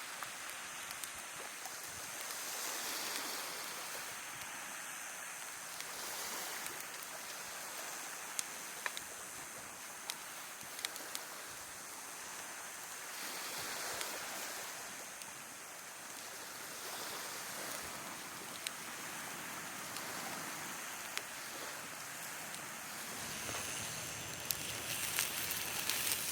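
Steady outdoor rushing noise that swells and fades every few seconds, with scattered sharp clicks, most of them near the end.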